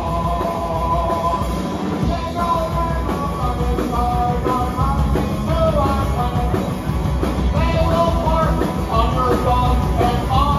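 Live punk rock band playing at a steady, loud level.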